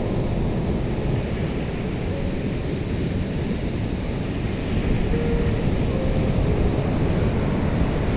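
Ocean surf: a steady rush of breaking and washing waves that swells a little about five seconds in.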